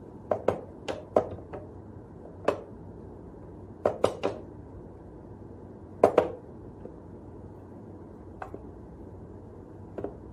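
Sharp wooden clacks from a wooden whack-a-mole cat toy as a cat paws at its pop-up mice and side levers. About a dozen knocks come at uneven intervals, several in quick pairs or threes, with the loudest near the middle.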